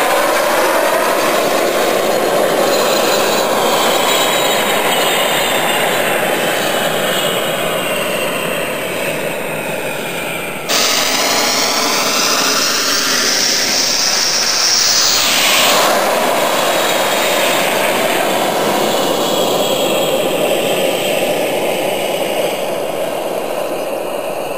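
Twin model gas-turbine jet engines on a go-kart running at power: a high whine over rushing jet noise. About eleven seconds in the sound changes abruptly. The whine then grows stronger as the kart approaches and drops sharply in pitch as it passes close by, before slowly fading as the kart runs away.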